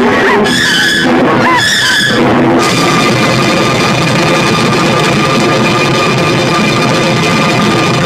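Loud rock-style music with drums. About two and a half seconds in, it changes into a dense, steady wall of sound with held tones.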